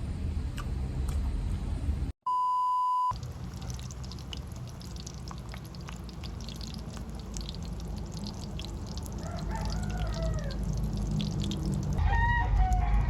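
A rooster crowing, with one drawn-out rising-and-falling crow about nine seconds in and another call near the end, over a steady low rumble of background noise. A short electronic beep sounds about two seconds in.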